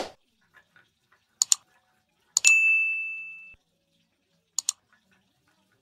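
Subscribe-reminder sound effect: a thump, then a double mouse click, a bell ding that rings for about a second, and another double mouse click near the end.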